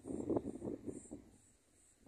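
A gust of wind buffeting the microphone for about the first second, over crickets chirping in steady high-pitched pulses about twice a second.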